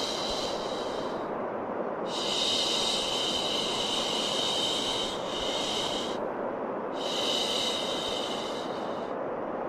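Steady white noise with a repeated 'shh' shushing hiss over it, each shush lasting a couple of seconds, about three times, to soothe a crying baby.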